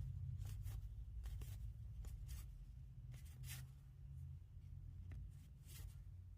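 Faint handling of trading cards and booster packs: soft rustles and light ticks every half second or so, over a low steady hum.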